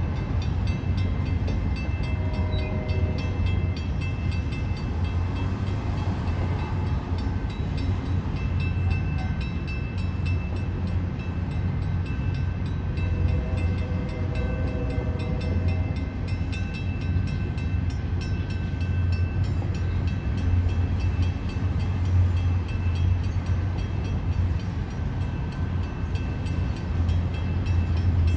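A train rolling past: a steady low rumble of wheels on the rails, with thin, steady high-pitched tones over it that come and go.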